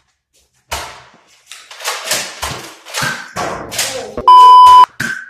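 Nerf blasters firing and foam darts striking: a quick run of sharp snaps and thuds, about ten in three seconds, with shouting mixed in. About four seconds in comes a loud, steady half-second censor bleep.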